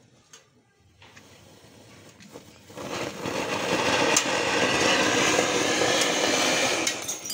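Anar (flower-pot fountain firework) erupting into a loud, steady hissing spray of sparks about three seconds in, with scattered sharp crackles, after a quiet start while the fuse burns.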